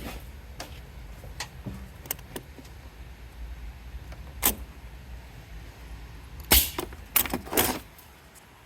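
Scattered sharp clicks and knocks of tools and a compression-test gauge being handled at the engine, loudest in a cluster about six and a half to seven and a half seconds in, over a steady low rumble.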